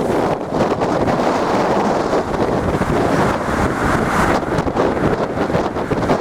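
Strong wind buffeting the microphone over the rush of stormy sea waves, a loud, steady noise that swells briefly about four seconds in.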